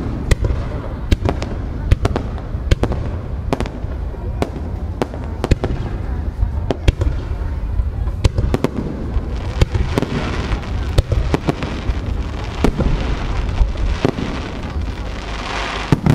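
Haga Kako aerial firework shells bursting at close range: a run of sharp bangs over a steady low rumble, with a crackling hiss swelling around ten seconds in and again, louder, near the end.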